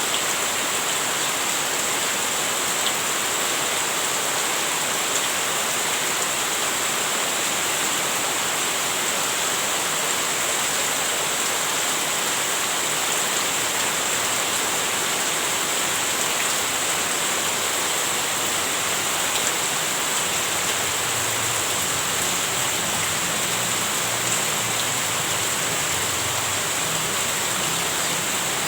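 Heavy rain falling steadily, a dense, even hiss of drops without let-up.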